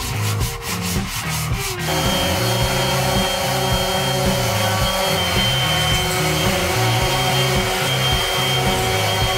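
Hand sanding of a wooden board with a sanding block, quick back-and-forth rubbing strokes. About two seconds in, a DeWalt random orbital sander takes over, running steadily on the wood with a high motor whine over the hiss of the abrasive.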